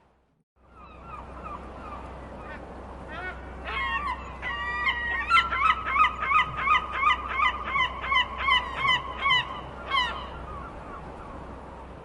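Seagulls calling over a steady background hiss. From about four seconds in, the calls build into a fast run of loud, repeated cries, about three a second, which stops about ten seconds in.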